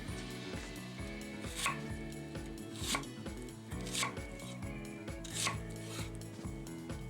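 A knife chopping on a cutting board: four separate strikes, a little over a second apart, over steady background music.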